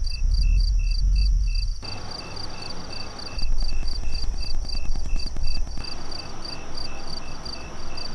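Crickets chirping in a steady, even rhythm of about three chirps a second, with a second, faster chirping line above it. Underneath is a low rumble that gives way to a hiss about two seconds in.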